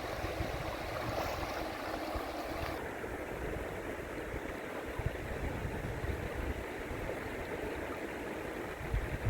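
River water flowing steadily, with gusts of wind rumbling on the microphone.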